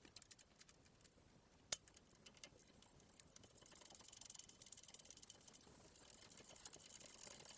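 Faint metallic clicking and rattling from hand tools and hardware at work on the UTV's rear suspension: scattered light clicks with one sharp clink about two seconds in, then a denser run of rapid clicks.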